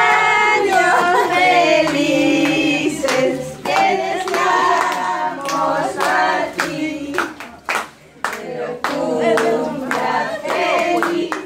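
A group of people singing a birthday song together, with hand-clapping in time with the song.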